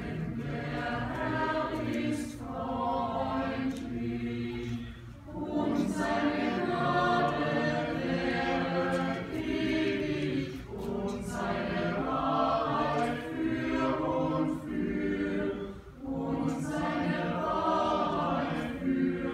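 Mixed choir of men's and women's voices singing a sacred choral piece in full chords, in long phrases with brief breaks between them.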